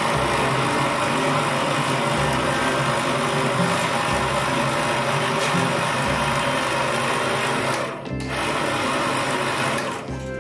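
Electric meat grinder motor, repurposed to drive a rod, running steadily and turning it while steel wire is wound into a coil spring. The motor sound drops out briefly about eight seconds in and stops near the end.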